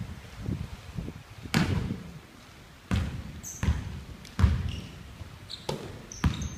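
Basketball bouncing on a hardwood gym floor: separate hard bounces about a second apart, each with a short echo in the hall, and a few brief high squeaks in between.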